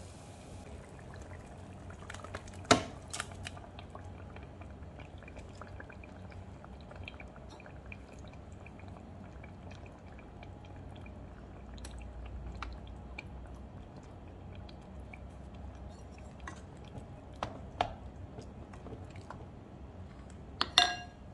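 Onion, blended ingredients and tomatoes cooking in oil in a rice cooker's inner pot, with faint scattered crackles of frying. Sharp knocks of utensils or containers against the pot come about three seconds in, twice near the end, and once more just before it stops.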